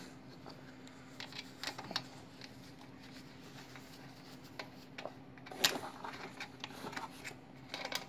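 Faint metal clicks and scrapes of wing nuts being threaded by hand onto the studs of a kerosene heater's wick assembly, with a slightly louder knock of metal a little past halfway, over a faint steady hum.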